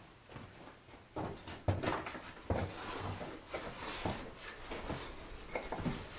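Footsteps on sandy, rocky ground: an irregular run of soft knocks and scuffs, a few heavier steps among them.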